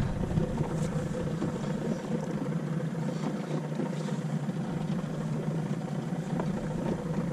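Small aluminium boat's outboard motor running at a steady, even drone as the boat moves across the water.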